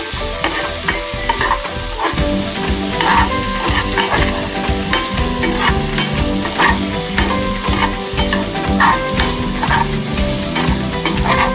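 Halved Brussels sprouts sizzling in hot oil in a nonstick frying pan, stirred and turned with a spatula that scrapes the pan about once a second.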